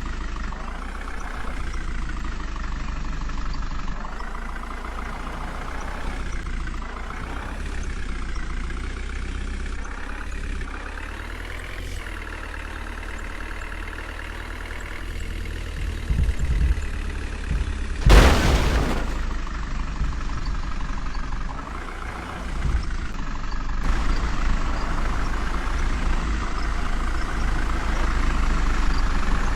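Diesel engine of a JCB 3DX backhoe loader running under work, its pitch rising and falling repeatedly as it is revved. About eighteen seconds in there is a sudden loud rush of noise lasting about a second.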